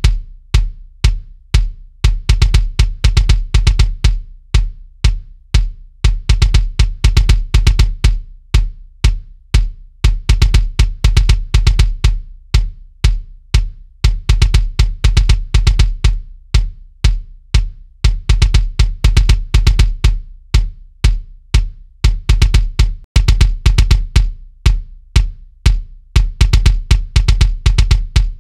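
Kick drum playing a fast, repeating pattern of hard hits with deep low end, played back through a bus compressor for an A/B comparison of the SSL BiG SiX and a full-size SSL console. There is a short break about three-quarters of the way through, where one take gives way to the next.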